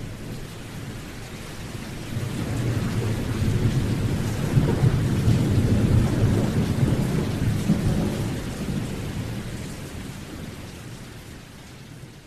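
Thunderstorm: steady rain with a long roll of deep thunder that builds for a few seconds, peaks midway and slowly fades away.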